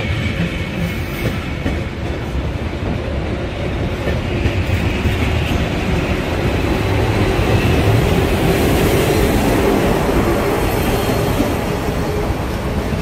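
Matterhorn Gotthard Bahn metre-gauge passenger train passing close by: a steady loud rumble and rattle of its wheels on the rails, with a thin high wheel squeal.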